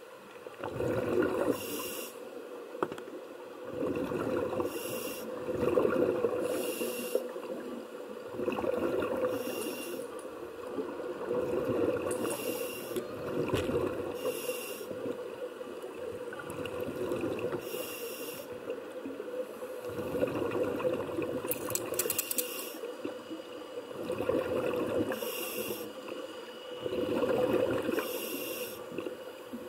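A scuba diver breathing through a regulator underwater: a short hiss on each inhale alternating with a longer gurgle of exhaled bubbles, repeating every few seconds.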